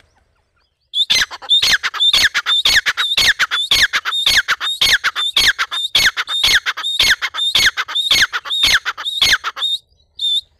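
Grey francolin (teetar) calling: a long run of loud, harsh notes, about two or three a second, each sliding sharply down in pitch. It starts about a second in and breaks off near the end.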